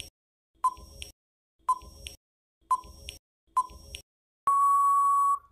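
Countdown timer sound effect: four short beeps about a second apart, then one long steady beep lasting about a second.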